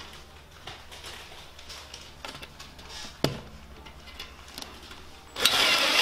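Light handling clicks and one sharp knock, then about five and a half seconds in a cordless drill starts driving a wood screw through the steel leg bracket into the wooden tabletop, its motor whining loudly.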